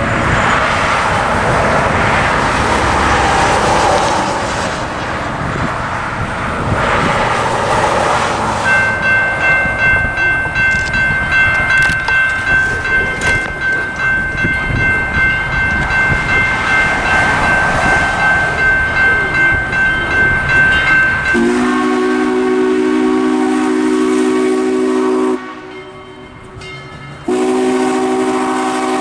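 Road traffic passing, then a railroad grade-crossing warning bell starts ringing about nine seconds in, a steady pulsing ring as the gates lower. The ringing stops and the approaching train sounds a long chord blast, falls silent for a moment, then sounds another long blast near the end: the crossing warning signal.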